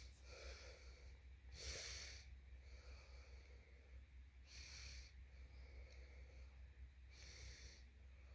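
Near silence: a low steady hum with three faint breaths close to the microphone, about three seconds apart.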